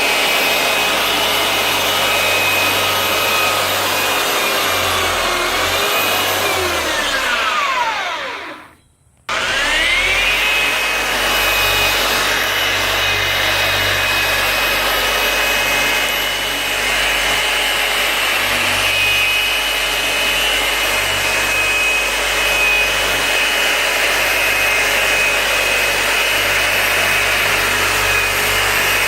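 Handheld electric power tool running steadily under load. About seven seconds in it is switched off and its motor whine falls as it winds down to a stop. Just after nine seconds it is switched back on and spins up with a rising whine, then runs steadily again.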